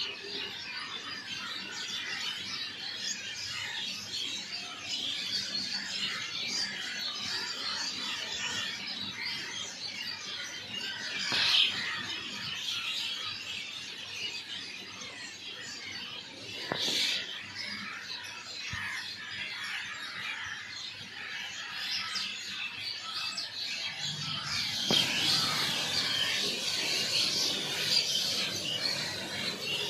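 Many small birds chirping and twittering at once in a dense, continuous chorus. It grows louder and busier from about 25 seconds in.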